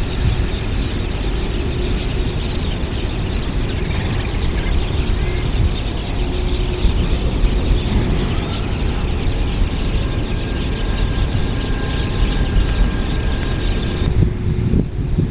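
Steady low rumbling background noise, with faint steady hums coming in during the second half.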